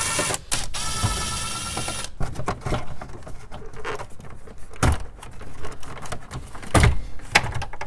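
A Ridgid cordless driver running with a steady motor whine as it backs out a Phillips screw, pausing briefly and stopping about two seconds in. Then scattered clicks and knocks of the plastic dash bezel being handled.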